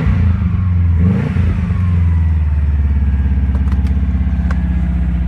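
Vehicle engine on a cold start, making the bad noise the owner says lasts until it warms to about 160–170 degrees. It is revved briefly twice near the start, then settles into a steady idle.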